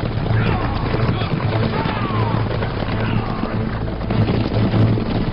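Horses galloping as a group, hooves pounding, with riders repeatedly shouting 'jia!' to drive them on, over film score music.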